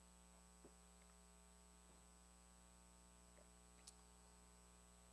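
Near silence: a steady low electrical hum, with two faint short clicks.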